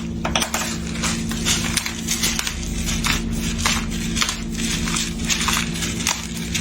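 Pepper mill being twisted, grinding black pepper in short, rhythmic, scratchy strokes, about two or three a second.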